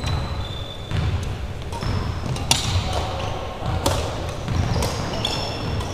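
Badminton rally: rackets strike the shuttlecock with a sharp crack roughly once a second, the loudest about two and a half seconds in. Short high sneaker squeaks on the hardwood court come in between.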